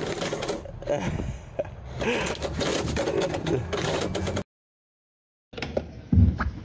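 A glossy paper flyer rustling and scraping as it is pushed through a metal door mail slot, with the slot's flap rattling. It cuts off to silence about four and a half seconds in, and a short thump follows near the end.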